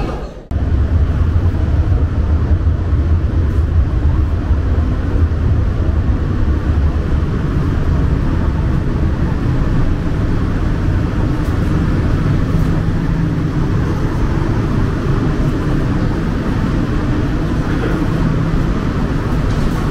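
Shanghai Metro Line 14 train running between stations, heard inside the passenger car: a steady low rumble that starts abruptly about half a second in.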